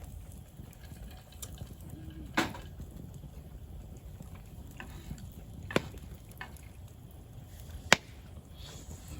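Wood campfire burning with a low steady rumble, and four sharp pops scattered through it, the loudest near the end.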